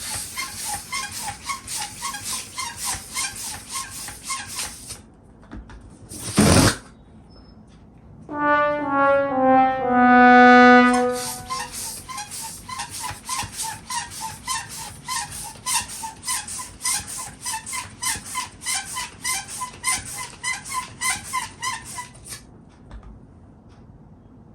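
Rapid strokes of a balloon hand pump, about three or four a second, each with a short whistle of air. About six seconds in there is a loud burst. From about eight to eleven seconds in, a balloon's stretched neck lets out a loud, trumpet-like squeal, and then the rapid pumping resumes.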